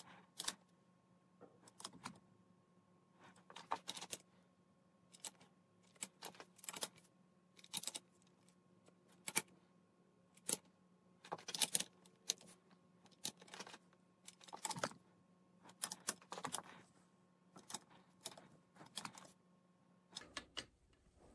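Short clusters of metallic clicks and clinks, every second or two, from a torque wrench with its socket and extension being fitted and turned on the camshaft cap bolts of a Yamaha 1.8 L marine engine cylinder head.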